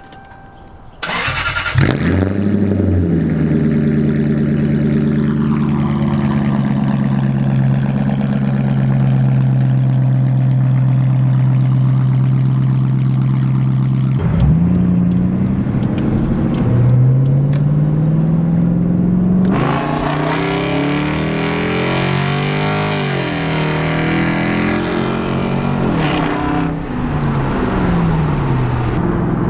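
Cold start of a V engine with a straight-piped true dual exhaust and an H pipe: it cranks and catches about a second in, then settles into a steady fast cold idle. Later the revs climb and are worked up and down for several seconds, then drop back toward idle near the end.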